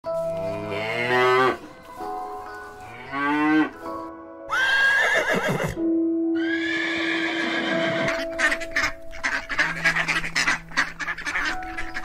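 A cow mooing twice, then a horse whinnying with a high, wavering call, over background music. Near the end comes a quick run of short, sharp sounds.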